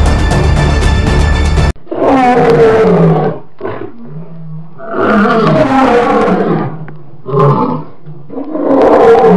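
Background music cuts off abruptly about two seconds in. A big cat roars and growls in several separate calls of differing length.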